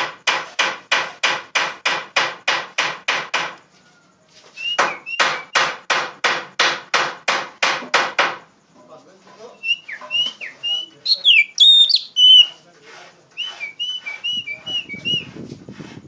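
Oriental magpie-robin singing loudly: two runs of rapid harsh notes repeated about four times a second, then clear whistled notes and chirps in the second half.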